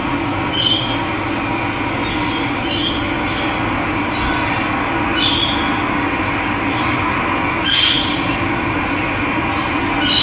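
Steady rush of running water, with a bird giving a short call about every two and a half seconds, five times in all; the call near the end of the second third is the loudest.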